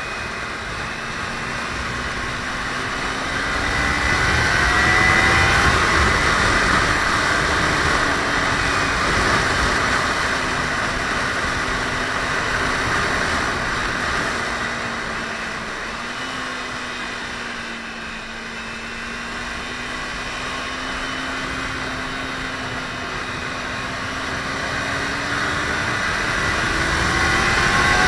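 Kawasaki Ninja 300's parallel-twin engine running at road speed under heavy wind rush. The engine note climbs over the first few seconds, then sinks slowly. It breaks briefly a little past the middle, holds steady, and climbs again near the end.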